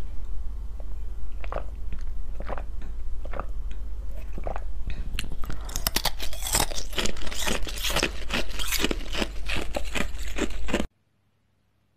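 A run of crisp crunching and crackling strokes, sparse at first and coming thick and fast from about halfway, over a steady low hum; it cuts off abruptly near the end.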